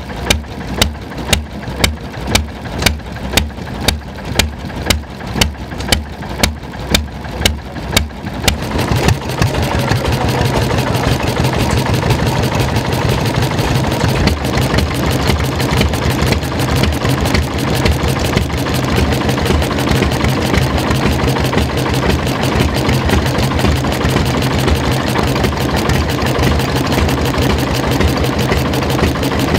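Old single-cylinder stationary engines running. The first fires slowly, with loud, evenly spaced beats a little under two a second. About eight seconds in it gives way to a faster, steady running Deutz stationary engine.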